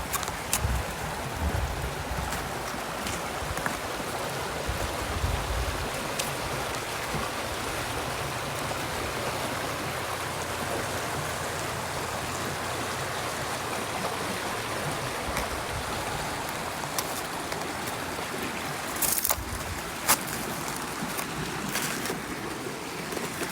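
River water flowing and rushing steadily. There are low rumbles in the first few seconds, and brief sharp clicks and crackles about three quarters of the way through.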